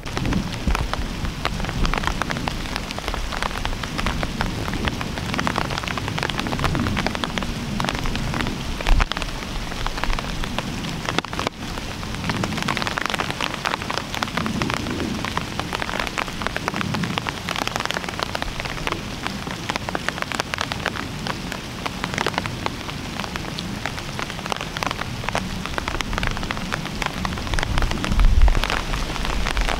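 Steady rain pattering on dry fallen leaves and bare branches, a dense run of close drop hits. There is a low bump about nine seconds in and another near the end.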